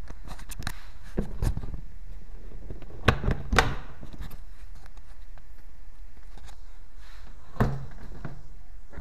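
The plastic door of a children's electric ride-on car is swung and shut by hand, giving a few sharp knocks and clunks. The loudest come about three seconds in, and one more comes near the end.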